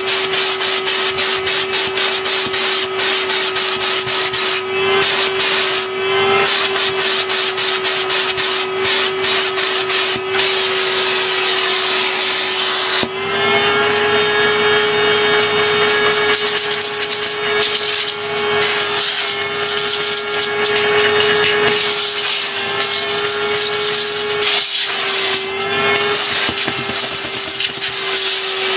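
Numatic Henry vacuum cleaner running with a steady motor whine while its plastic crevice tool scrapes and rattles quickly over the dusty plastic lid and filter of a vacuum cleaner's bin. The whine steps up a little in pitch about halfway through and dips briefly near the end.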